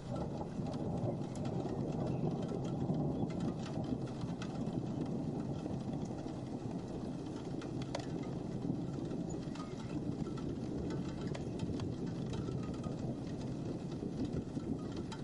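Rain drumming steadily on a roof window: a dense, low patter of drops on the glass with scattered sharper ticks of single drops, swelling louder at the start.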